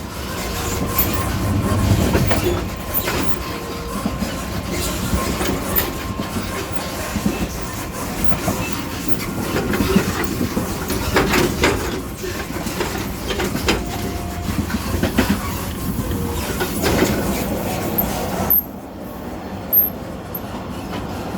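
Continuous running noise at the gangway between carriages of the Shan Lan tourist train on the move: a steady rumble with clickety-clack from the wheels and scattered knocks and rattles from the carriage connection. About three-quarters of the way through, the sound turns duller as the hiss drops away.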